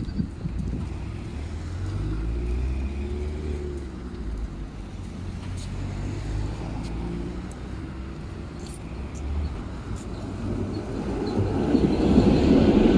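Electric tram approaching and pulling up at a stop: a low rumble with a whine from its motors, gliding in pitch early on and then holding steady. It grows clearly louder near the end as the cars draw alongside, with wheel-on-rail rumble.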